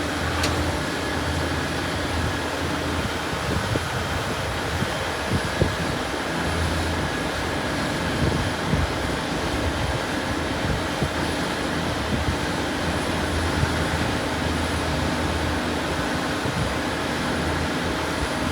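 Self-propelled sweet corn harvesting machinery running steadily with a constant low engine rumble.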